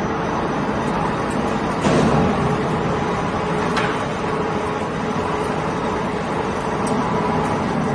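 An ALCK6140X1000 CNC lathe turning a metal bar: a steady machining noise with a faint held tone from the spindle and cut, broken by sharp clicks about two and four seconds in.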